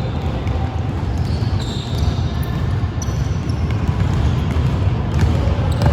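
Basketball game play on a gym floor: a basketball bouncing as it is dribbled, with short high sneaker squeaks here and there.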